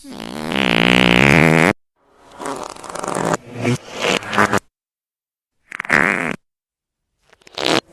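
Fart sound effects played one after another, with dead silence between: a long pitched fart of nearly two seconds, then a sputtering run of several short farts, a single short one, and a brief one near the end.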